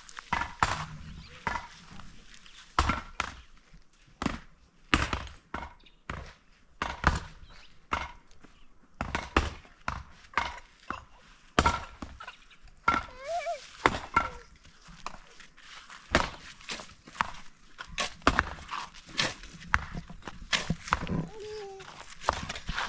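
A series of sharp, irregular knocks, roughly one or two a second, like repeated chopping or striking.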